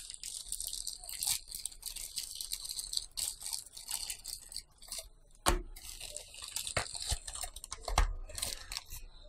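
A plastic mailer bag crinkling and rustling as hands pull and tear it open, with a few sharper clicks in the second half.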